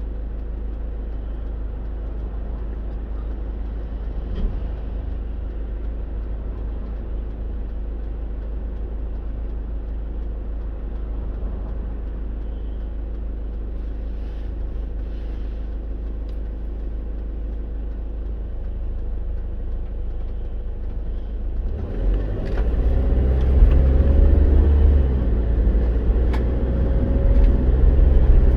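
Car cabin noise while driving: a steady low engine and road rumble. About two-thirds of the way through it grows louder, and the engine note shifts in pitch as the car speeds up, with a few light ticks.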